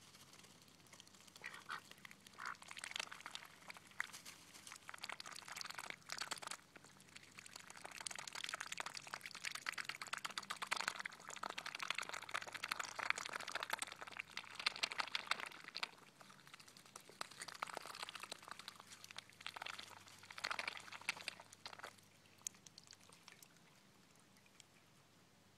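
Pekin and Cayuga ducks dabbling with their bills in a water bowl and wet mud: a dense run of rapid wet clicking and slurping that builds about two seconds in and stops a few seconds before the end.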